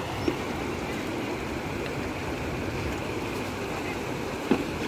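Shallow river water rushing steadily over rocks. Two brief sharp clacks stand out, a faint one just after the start and a louder one near the end.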